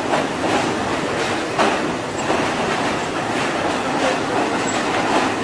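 Train running on rails: a steady rumble with a few sharp clacks of the wheels over rail joints.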